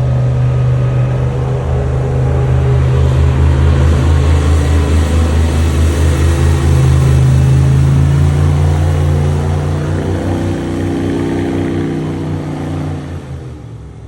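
Side-by-side UTV engine running steadily under way, with small changes in pitch; it fades down over the last couple of seconds.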